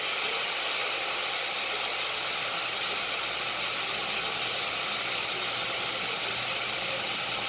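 Breaded chicken wings shallow-frying in oil in a cast-iron skillet, a steady sizzle.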